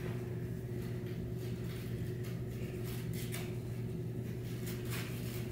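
Steady low hum of room tone, with a few faint, brief rustles of a paper chain's links being pulled apart by hand.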